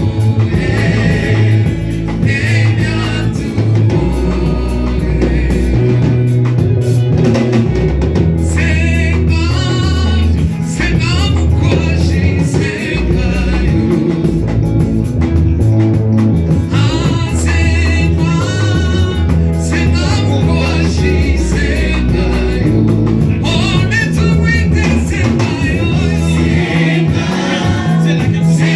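Live gospel worship music: voices singing a hymn over a band with bass and drums.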